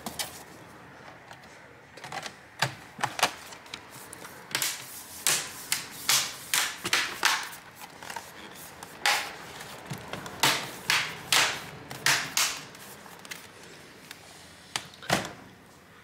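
HP Pavilion 15s laptop's bottom cover being pressed down by hand, its clips snapping into place in a long run of sharp clicks and snaps, starting about two seconds in.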